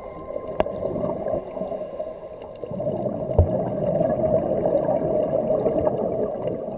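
Underwater gurgling and bubbling of a scuba diver's exhaled breath, heard through the camera housing, swelling about three seconds in. A sharp click comes near the start and a low knock about halfway.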